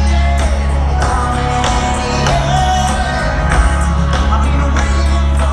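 Live rock band playing through a stadium PA, heard from the stands: heavy bass, regular drum hits, and a voice singing over it.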